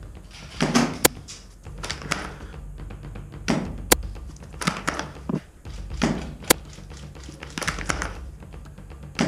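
Footsteps crunching through snow, irregular and about one a second, with a sharp click roughly every three seconds.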